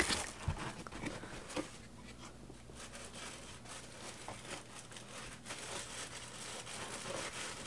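White tissue paper rustling and crinkling softly as a gloved hand moves it about inside a cardboard shipping box, with a light knock about a second and a half in.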